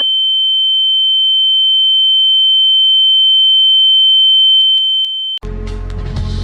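A loud, steady, high-pitched pure ringing tone, an ear-ringing (tinnitus-style) sound effect, growing slightly louder. It cuts off suddenly about five seconds in, and dark music begins.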